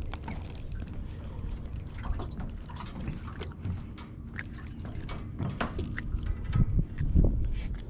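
Water splashing and dripping while a hooked bass is played on the line, with scattered small splashes throughout and a few dull thumps near the end.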